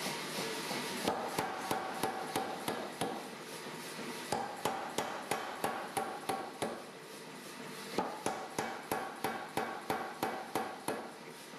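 Blacksmith's hammer striking steel on an anvil in three runs of blows, about two to three a second, with short pauses between runs; each blow rings briefly.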